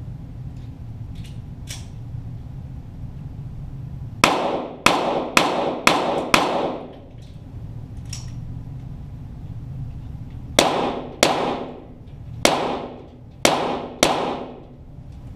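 .22 rimfire Walther GSP target pistol fired in quick strings: five shots about half a second apart, then after a pause five more at an uneven pace, each shot echoing. A steady low hum runs underneath.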